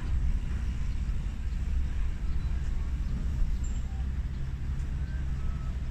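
Low, steady outdoor rumble with a few faint, short chirps scattered through it.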